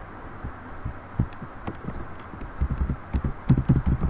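Computer keyboard keystrokes picked up by the recording microphone as dull low thumps, a few scattered at first and then a quick run of them over the last second and a half, over a steady background hiss.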